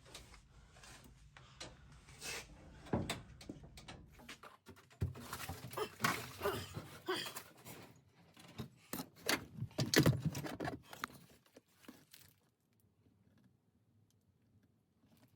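Irregular clatter and knocks of metal parts and tools being handled, over a low steady hum that stops about four and a half seconds in.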